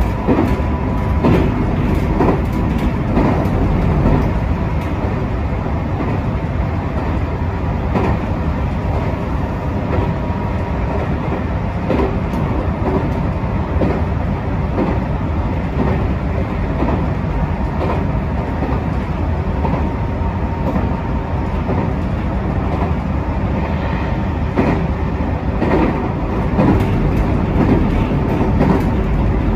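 JR 221 series electric train running along the line, heard from on board: a steady rumble of wheels on rail with clicks over rail joints at irregular intervals. A faint high hum comes and goes.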